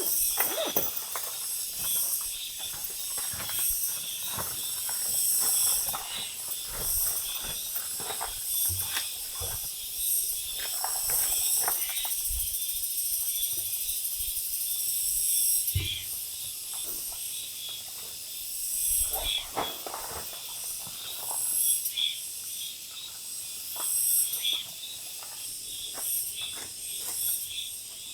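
Steady high-pitched insect chorus, chirring in even pulses, with scattered light clicks and knocks throughout.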